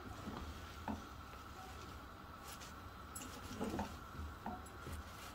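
Chopped wet mustard greens and spinach being pressed and turned with a silicone spatula in a pot: faint, soft squishing and rustling with a few light taps.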